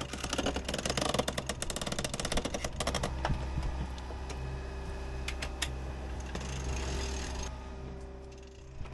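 Steady machine hum with a run of rapid mechanical clicking, like a ratchet, through the first three seconds, and a few separate clicks later on.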